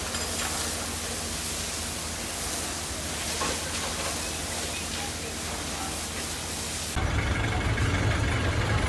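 Steady hiss of background noise. About seven seconds in, it cuts abruptly to a louder idling engine with a deep, steady hum.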